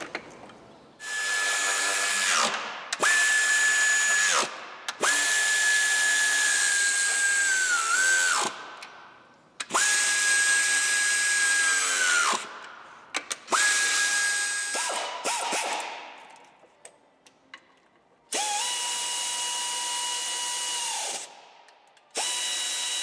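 Air-hose-fed pneumatic ratchet running in about six short bursts of one to three seconds each, each a steady high whine with air hiss that drops in pitch as it winds down. It is driving the intake manifold fasteners during reassembly. The last run, near the end, has a lower whine.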